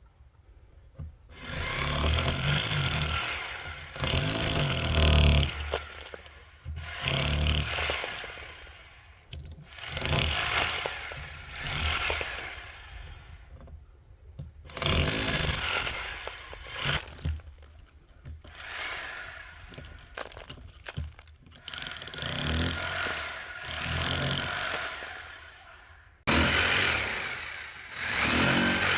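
Power drill boring holes, running in about ten bursts of two to three seconds each with short pauses between them.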